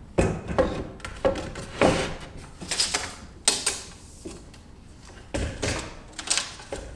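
Workbench handling sounds from a steel tape measure being worked along 2x6 lumber: a string of about eight short, irregular knocks and scrapes.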